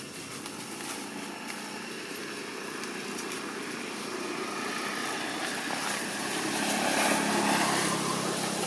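A motor vehicle engine passing, its hum growing steadily louder to a peak about seven seconds in, then beginning to fade.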